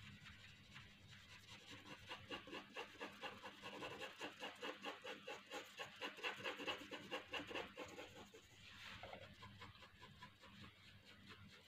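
Pencil lead scratching on paper in rapid, even back-and-forth sketching strokes, loudest in the middle of the stretch and easing off about eight seconds in.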